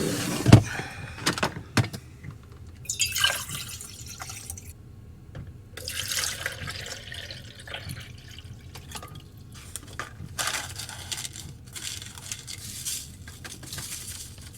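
Water being poured in a few spells to fill a drip coffee maker, with clicks and knocks near the start from handling the pot and lid.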